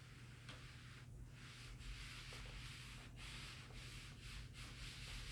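Faint rustling and rubbing of fabric being handled and folded by hand.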